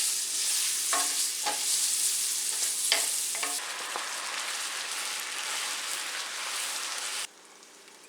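Pork, potato and zucchini frying in oil in a skillet, sizzling steadily while being stirred, with a few sharp clicks of the utensil against the pan about a second in and again around three seconds. The sizzle cuts off suddenly near the end.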